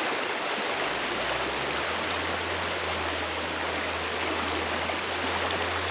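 Creek water rushing steadily over rocks and small rapids.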